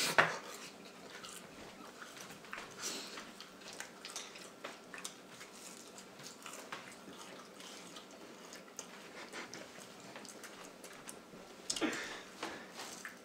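People chewing and biting into breaded chicken nuggets: scattered wet mouth smacks and small clicks, with a louder one about twelve seconds in.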